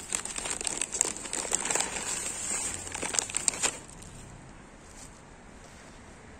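Plastic bag of cat food crinkling and rustling as it is handled, a dense run of sharp crackles that stops after about three and a half seconds.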